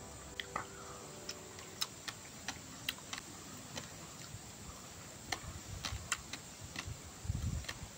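A person chewing food close to the microphone: sparse, irregular crisp clicks of the mouth and teeth, one or two a second.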